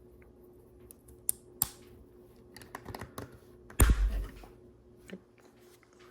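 Plastic LEGO bricks clicking and clattering as pieces are handled and pressed together, a scatter of small sharp clicks. One louder thump comes about four seconds in.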